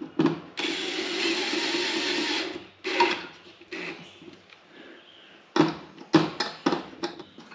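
Cordless drill running steadily for about two seconds as it drives a Phillips screw through a small metal bracket into a steel workbench hutch. A scatter of short sharp clicks and knocks follows as parts are handled.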